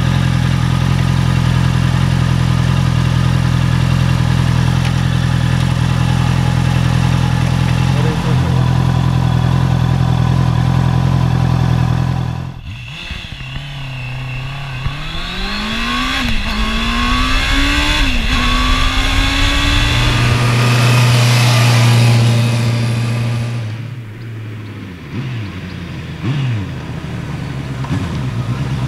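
Honda CB650R's 649 cc inline-four engine idling steadily for about twelve seconds. Then, heard from on board, it pulls away with a rising note through two quick upshifts and holds a steady, louder note, before falling away about five seconds from the end.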